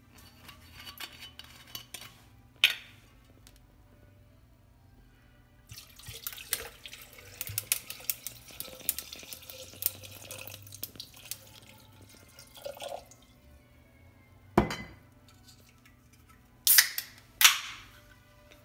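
Liquid poured from a bottle onto ice in a glass for about five seconds, with glass clinking. This is followed by a few separate sharp knocks and clinks of glass.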